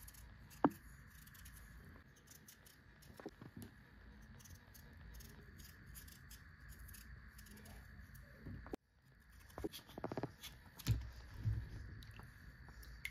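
Small serrated knife paring the skin off a raw potato: soft scraping strokes with a sharp click about a second in. After a brief drop-out near the middle, low knocks and water swishes as peeled potatoes are handled in a steel bowl of water.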